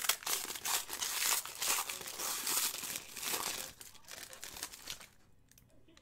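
Wrapper of a trading-card pack being torn open and crumpled by hand: dense crinkling and crackling that thins out and stops about five seconds in.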